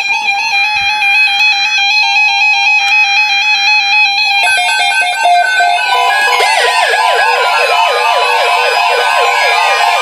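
Several NOAA weather radios sounding their alert at once for a severe thunderstorm watch: a steady alert tone with overlapping beeping alarm tones. About six seconds in, a fast warbling siren-like alarm joins, along with a slow falling whistle.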